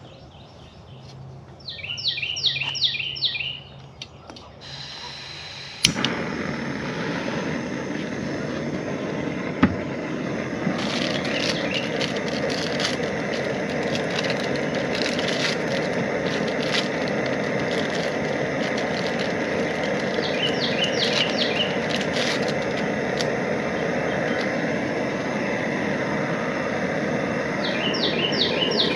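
Jetboil gas stove being lit: a faint hiss of gas, a sharp click of the igniter about six seconds in, then the burner running with a steady rushing hiss as it heats water. A bird chirps a few quick notes near the start, again about two-thirds through, and at the end.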